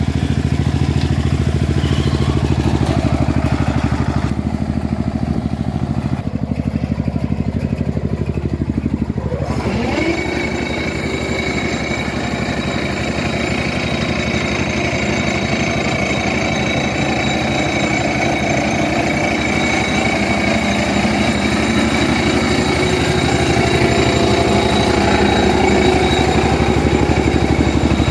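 Single-cylinder diesel engine of a homemade mini tractor running with a steady, fast chug. About ten seconds in, a higher whine joins it as the front grass cutter works.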